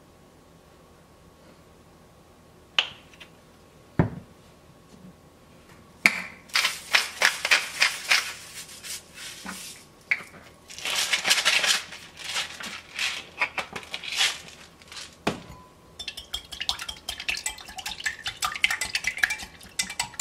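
Two sharp knocks, then bouts of rapid grinding as salt and pepper grinders are turned over the bowl. Near the end comes a quick run of scraping clicks: a wire whisk beating eggs and milk in a glass Pyrex measuring jug, rattling against the glass.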